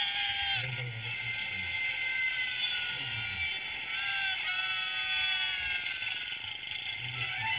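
Cartoon soundtrack music with held and sliding notes, over a steady high-pitched hiss.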